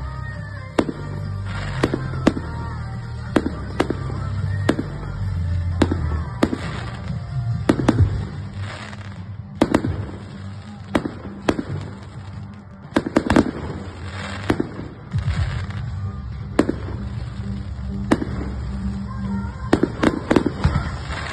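Professional firework display: a fast, irregular string of sharp bangs and cracks from comets, mines and aerial shells bursting, with a dense cluster of reports about two-thirds of the way in.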